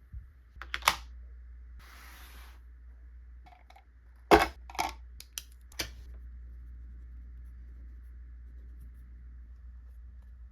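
Sharp plastic clicks and knocks from an iPad being handled and fitted into a new case, with a short rustle about two seconds in and the loudest snap about four seconds in. It falls to quiet room tone for the second half.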